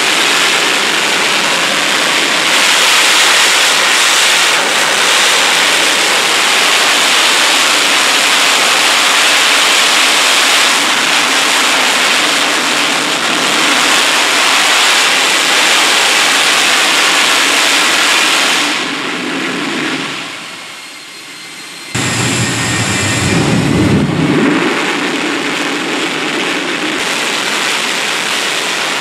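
Turbojet engine with afterburner running on a test stand: a loud, steady rushing jet noise. About twenty seconds in the sound fades for a couple of seconds, then returns abruptly with a deep rumble that settles back into the steady rush.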